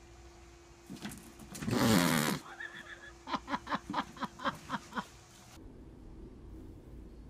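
A person's loud cry, falling in pitch, about two seconds in, then a quick run of laughter of about four bursts a second that cuts off abruptly.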